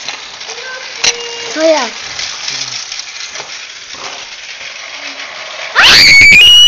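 A very loud sound effect, just under a second long, rising in pitch, cut in near the end over faint hiss and distant children's voices.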